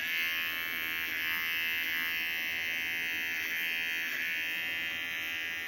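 Small electric shaver buzzing steadily as it skims the fur on a dog's paw pads.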